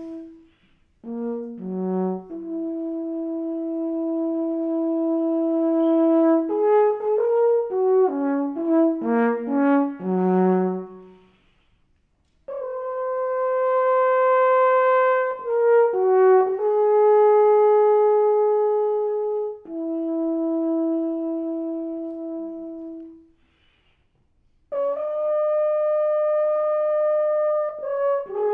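Solo alphorn playing calls and motifs: long held notes and a quick run of short notes, in three phrases broken by two short pauses.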